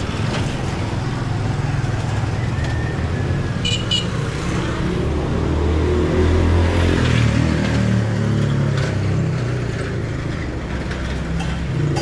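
Street traffic: a motor vehicle engine running close by, getting louder about six to seven seconds in as it passes, its pitch falling.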